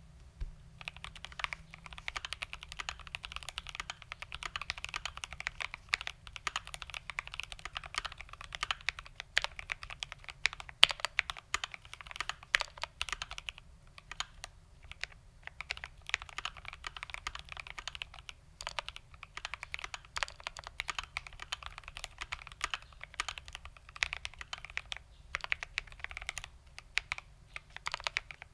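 Continuous fast typing on a GMMK Pro mechanical keyboard with Tangerine linear switches on a polycarbonate plate and Cherry-profile ABS doubleshot keycaps: a dense run of key clacks, with brief pauses about halfway through and near the end.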